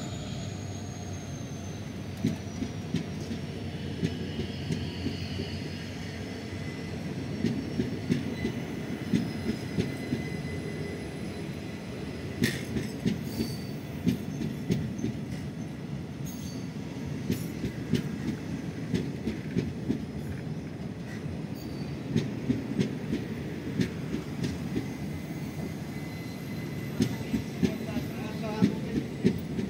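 Indian Railways passenger coaches of a departing express rolling past, with a steady rumble and repeated knocks as the wheels clatter over rail joints. Thin wheel squeal comes through at times.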